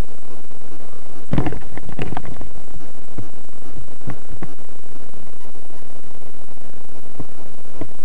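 Loud steady hiss of microphone self-noise from a glasses-mounted camera. A cluster of soft knocks comes about a second and a half in, and a few single knocks follow later.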